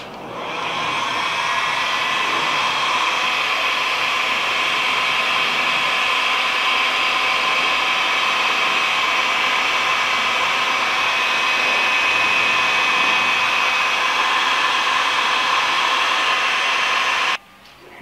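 Electric heat gun running: a steady fan whir that builds up over the first second, holds evenly, then cuts off suddenly near the end.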